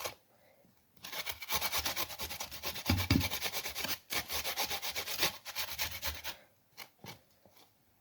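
A peeled turnip being grated on the fine side of a hand grater: quick back-and-forth scraping strokes, starting about a second in, with a short pause near the middle and only a few strokes near the end.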